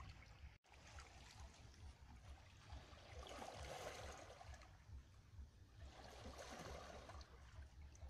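Faint sound of small waves lapping and washing over rocks at the shoreline, with two gentle swells, about three and six seconds in.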